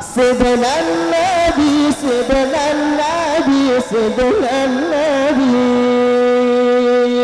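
A qari's solo male voice singing through a microphone in the ornamented Arabic recitation style, with quick wavering turns on each phrase. About five and a half seconds in he settles on one long held note.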